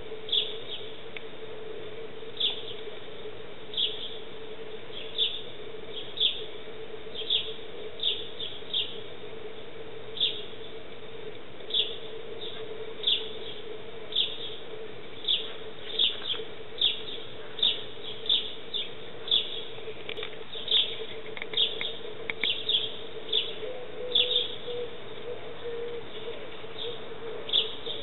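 A sparrow chirping repeatedly, short single chirps about once a second, coming quicker for a while in the middle, over a steady faint hum.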